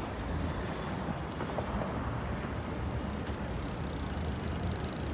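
City street traffic: a steady rumble of passing cars and trucks.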